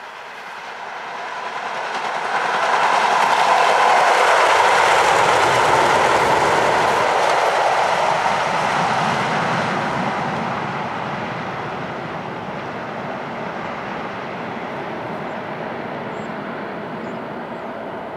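A pair of coupled Tyne and Wear Metrocars, electric light-rail units, running past on the track. The sound builds over the first few seconds, is loudest from about three to eight seconds in, then slowly fades as the train moves away.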